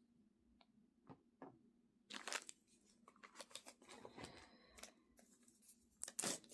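Small plastic packaging being handled and opened: a few light clicks, then faint crinkling and tearing from about two seconds in, with a louder rustle near the end.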